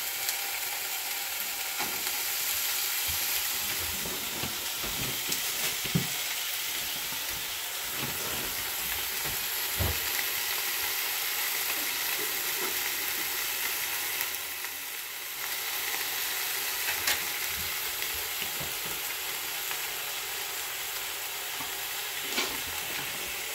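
Thick-cut pork slices for ginger pork (shogayaki) sizzling in a frying pan, a steady frying sizzle with a few light knocks now and then.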